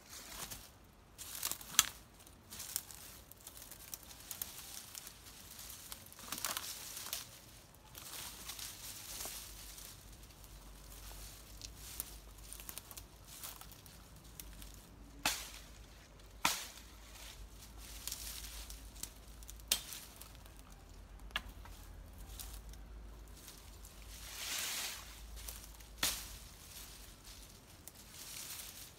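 Leafy branches and brush rustling as they are pulled and dragged by hand, with scattered sharp cracks of dry twigs snapping.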